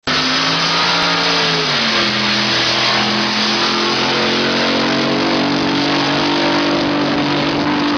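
Racing drag boat engine running hard at high revs, its pitch falling about two seconds in and then holding steady.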